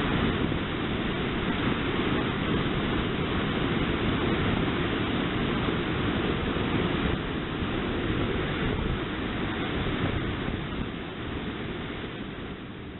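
Sea water rushing and breaking along the bow of a moving ship, with wind buffeting the microphone; the rush fades out near the end.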